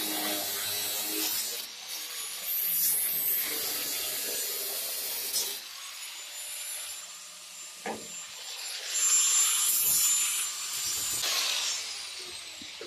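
Power tool cutting out a sheet-metal patch panel, the harsh cutting noise running with a high motor whine, stopping and starting a few times.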